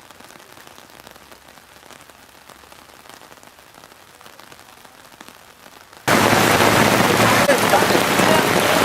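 Faint steady hiss, then about six seconds in an abrupt switch to heavy monsoon rain falling hard on a surface, loud and dense with crackling drops.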